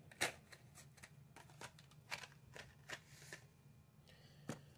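Faint, scattered clicks and light rustles of plastic-blister Hot Wheels cards being handled.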